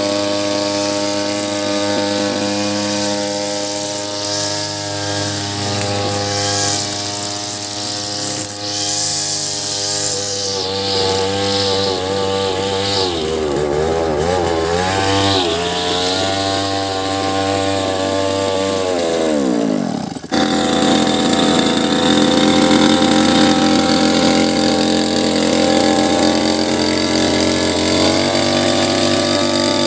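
Small grass-cutting machine engine running steadily, then its speed wavers and sinks as the engine falters, a machine the owner describes as coughing and stalling. After a sudden break about twenty seconds in, an engine runs steadily again, a little louder.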